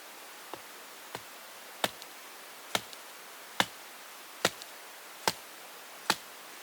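Eight evenly paced chopping strikes, the first two softer and the rest sharp and loud, over a steady hiss.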